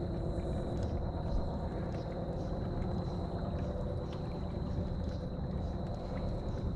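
A kayak moving across the water: a steady low rumble of water and wind, with a faint steady high tone over it.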